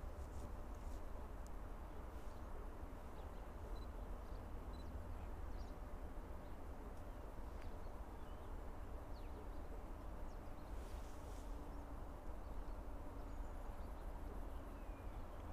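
Quiet outdoor rural ambience: a steady low rumble with faint, scattered bird chirps.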